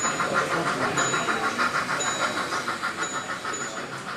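Model railway train running on a layout: a fast, even rhythmic chatter, with a short high tone repeating about once a second.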